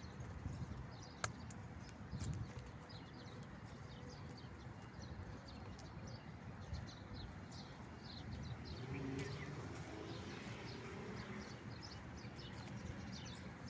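Many small birds chirping in the trees, a dense stream of short high chirps, over a low steady rumble of road traffic.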